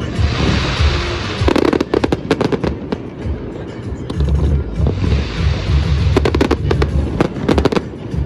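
Fireworks going off in two rounds, each a hissing rush followed by a rapid run of crackling bangs, with music playing underneath.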